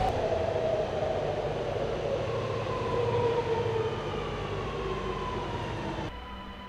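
Sydney Metro train's electric traction motors whining in several tones that glide slowly downward, over rumble and hiss, as the train slows. The sound cuts off suddenly about six seconds in, leaving a quieter steady hum.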